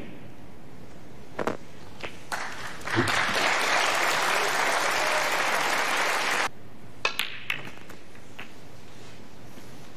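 Snooker balls clicking as shots are played, then audience applause for about three and a half seconds that cuts off suddenly, followed by three quick clicks of cue and balls.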